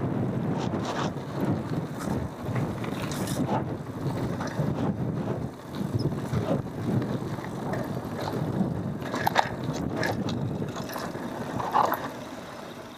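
Cube Analog hardtail mountain bike being ridden over a dirt trail: a steady tyre rumble, with sharp clicks and rattles from the bike jolting over bumps.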